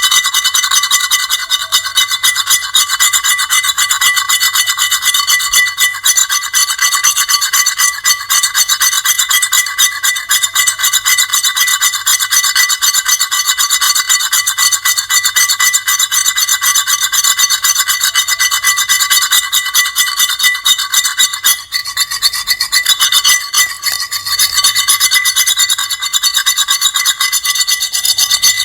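Continuous loud, harsh, high-pitched grating scrape with shrill squealing tones, dipping briefly about two-thirds of the way through.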